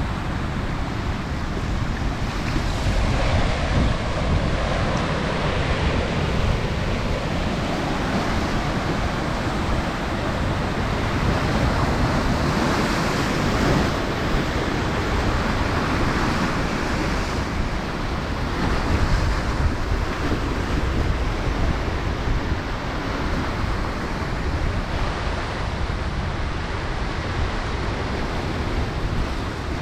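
Steady rushing of wind and waves, with deep rumbling wind buffeting on the microphone, swelling and easing in gusts.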